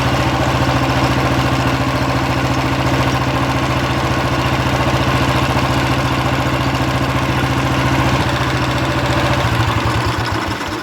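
Royal Enfield Electra 350's single-cylinder four-stroke engine idling with a steady, even beat, then switched off near the end, its beats slowing as it dies away.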